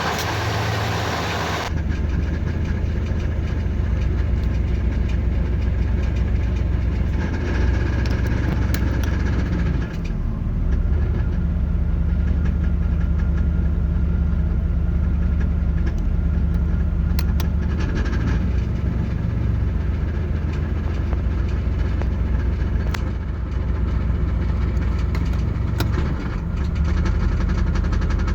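1989 Pontiac Firebird's 5.0 L 305 V8 idling with a rattle that the owner traces to the flexplate area between engine and transmission. The idle note shifts a few times.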